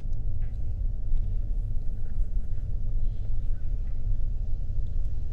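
Low, steady rumble of a car driving slowly along a road, heard from inside the vehicle: engine and tyre noise.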